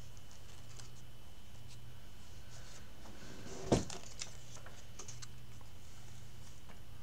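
Pages of a hardcover comic book being handled and turned by hand: faint paper rustles and light taps over a steady low hum, with one sharper knock just under four seconds in.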